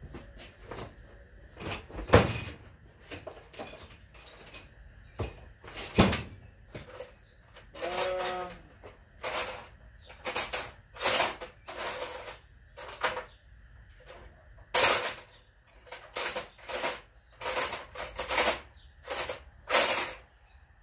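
Wrenches and other metal hand tools clanking and clinking as they are rummaged through, a long run of sharp clinks. Two louder knocks come about two and six seconds in, and a brief squeak about eight seconds in.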